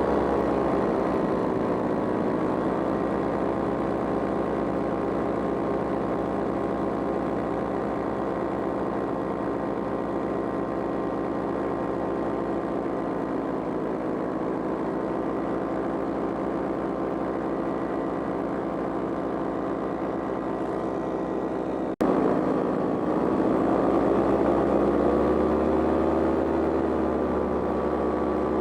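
Powered paraglider's engine and propeller running steadily in flight. Its pitch eases down about two seconds in. The sound breaks off for an instant about three-quarters of the way through and then comes back slightly louder, with the pitch wavering.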